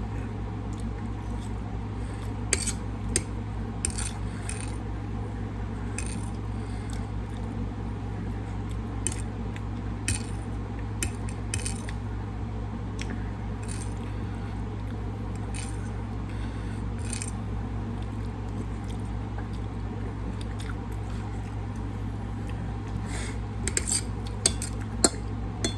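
Cutlery clinking and scraping against a plate during a meal, in scattered short sharp clicks, over a steady low hum.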